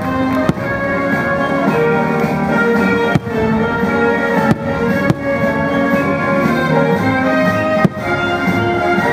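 Orchestral show music with brass and strings, and several sharp firework bangs through it as shells burst overhead.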